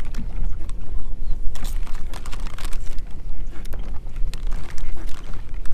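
Wind buffeting the camera microphone with a steady low rumble, with scattered crackles and taps through it, thickest a couple of seconds in.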